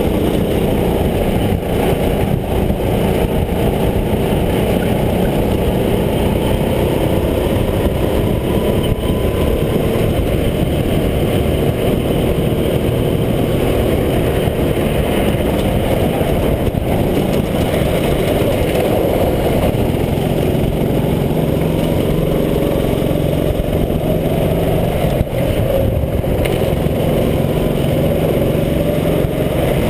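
Racing go-kart engine heard from on board at close range, running hard and continuously, its note rising and falling slowly with the throttle through the corners.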